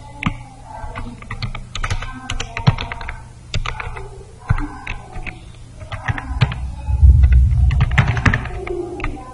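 Typing on a computer keyboard: irregular keystroke clicks as code is entered. About seven seconds in there is a loud low rumble lasting about a second.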